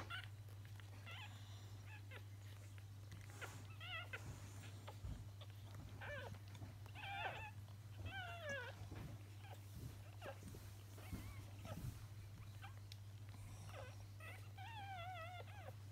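Newborn Sproodle puppies squeaking and whining: short, wavering high-pitched cries in bouts a few seconds apart, with a louder run near the end. A low steady hum lies underneath.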